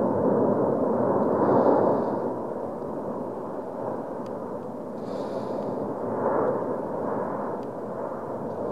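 La Palma volcano's vent erupting: a continuous rumbling noise of lava spattering and gas jetting. It is louder in the first two seconds, eases, then swells again about six seconds in.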